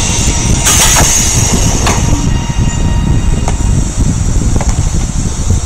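Train running, a steady low rumble with a few sharp clacks of the wheels over rail joints, and a high hiss that drops away a little over two seconds in.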